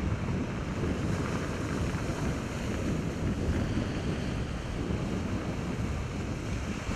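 Surf breaking and washing up a shingle beach, with wind buffeting the microphone.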